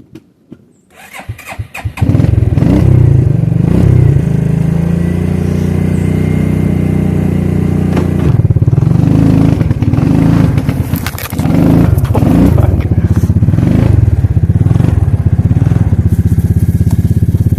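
Suzuki King Quad ATV's single-cylinder engine starting about two seconds in after a quiet moment, then running loudly with its speed rising and falling.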